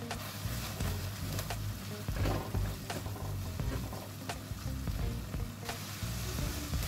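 Onion-tomato masala sizzling in a stainless steel pan while a silicone spatula stirs and scrapes it. Scattered sharp clicks come from the spatula against the pan.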